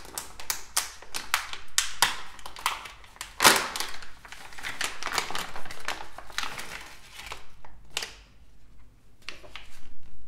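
Hands crinkling and handling a clear resealable plastic zip bag: a dense run of sharp crackles and rustles, loudest about three and a half seconds in, thinning out after about eight seconds.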